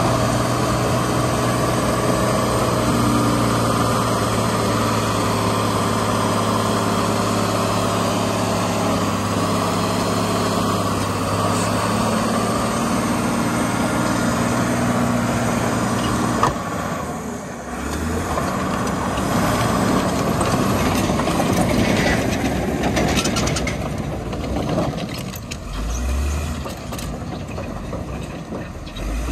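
The Cummins 5.9 six-cylinder diesel of a 1997 Dresser TD12-CXP crawler dozer running under load while it pushes dirt. The engine holds a steady pitch for about the first half. About halfway through there is a sudden click and the sound drops, then goes on more unevenly with some brief clanks.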